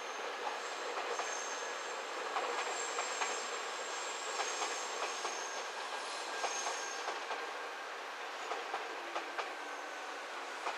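Train running on the rails, with high thin wheel squeal through the first several seconds and scattered clicks of wheels over the rails. It eases off slightly near the end.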